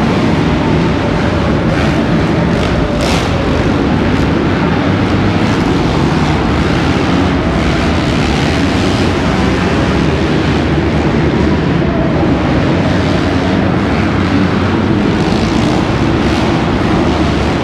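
A pack of motocross bikes racing around an indoor dirt track, their engines revving and merging into one loud, continuous drone that echoes through the arena hall.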